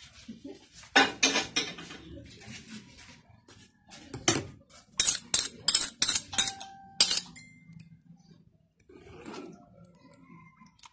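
Metal ladle knocking and clinking against the side of an aluminium cooking pot while stirring. A cluster of knocks comes about a second in, then a quick run of sharp clinks between about four and seven seconds, one of them ringing briefly.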